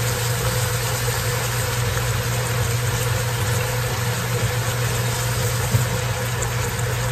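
A steady low mechanical hum with an even hiss over it, unchanging throughout.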